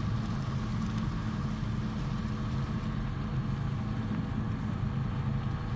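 150-kilowatt generator's engine running steadily under load during a load test, a constant low hum with a faint steady higher whine.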